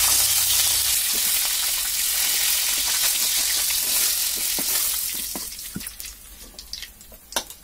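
Tilapia fish sizzling as it fries in hot oil in an iron karahi. About five seconds in the sizzle fades as the fried fish is lifted out, leaving a few clicks and scrapes of a metal spatula against the pan.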